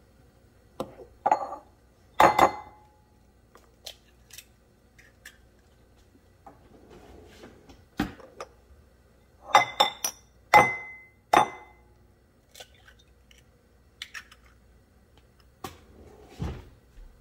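Eggs knocked against the rim of a white ceramic bowl to crack them: sharp knocks with short clinking rings, in two clusters several seconds apart. Lighter ceramic clinks follow near the end.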